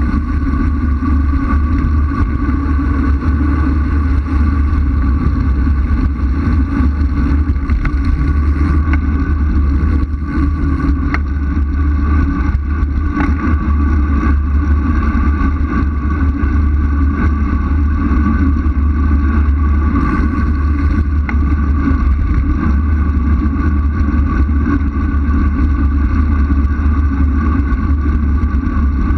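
Wind buffeting the camera's microphone at speed on a fast road descent, a steady low rumble with a faint constant whistle-like tone above it.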